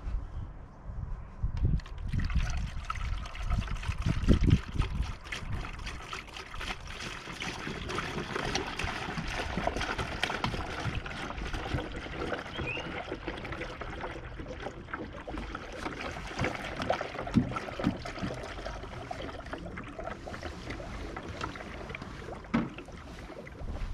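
Engine coolant, a 50/50 mix of antifreeze and deionised water, being poured into a cut-off plastic bottle that serves as a header tank on the expansion tank. It trickles and splashes steadily from about a second and a half in, with a few low thumps near the start.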